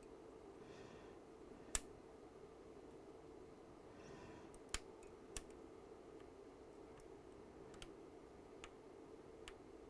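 Faint steady hum with sharp clicks from soldering tweezers working a small component on the circuit board: three louder clicks in the first half and a few lighter ticks after.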